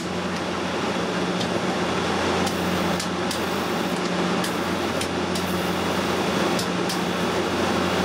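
Neon sign transformer driving a high-voltage arc at a light bulb: a steady mains hum under a hissing buzz, with irregular sharp snaps. The arc is jumping across the outside of the bulb's base rather than inside the glass.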